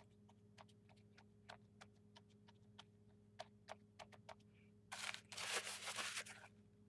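Hand pressing a sheet of paper down onto shaving cream in a plastic tub: faint scattered clicks and small crackles. About five seconds in comes a louder rustling rub lasting about a second and a half.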